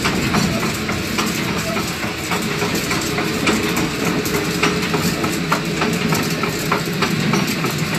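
Wind-driven millstones grinding grain: a steady low rumble with rapid, irregular clicking as the damsel shakes the wooden feed shoe under the hopper.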